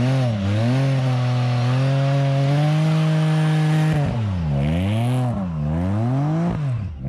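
Can-Am Spyder F3-S's Rotax 1330 three-cylinder engine held at high revs during a rear-tire burnout, with the hiss of the spinning rear tire. Past the middle the revs fall and rise about three times, and the sound fades near the end as the trike pulls away.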